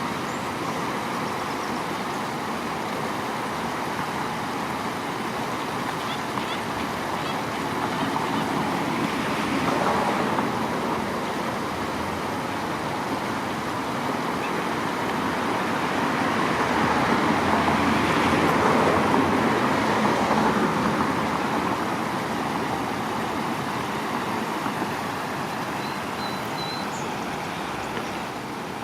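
Steady road traffic noise, swelling as vehicles pass about ten seconds in and again for several seconds around the eighteen-second mark.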